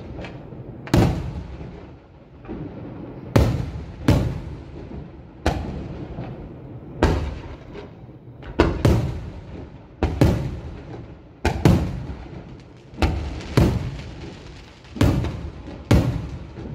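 Aerial firework shells bursting overhead: sharp bangs at irregular intervals, roughly one a second, sometimes two in quick succession, each followed by a rolling, echoing rumble.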